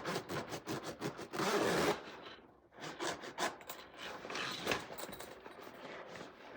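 A backpack zipper being worked: a run of quick ticks, then a longer, louder zip about a second and a half in, followed by a few shorter zips and rustling of the bag's fabric.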